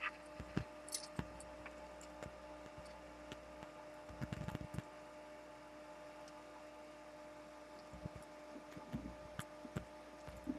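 Faint steady hum with scattered small clicks and soft knocks from a headphone cord and soldering iron being handled against a desk, with a short cluster of low knocks about four seconds in.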